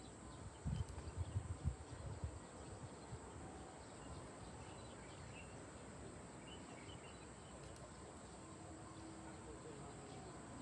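Faint outdoor ambience dominated by a steady, high-pitched insect drone, with a few low bumps in the first two seconds.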